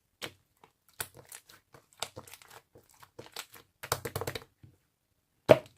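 Slime being squished and pulled by hand, making irregular crackling clicks and pops, denser about four seconds in, with one loud pop about five and a half seconds in.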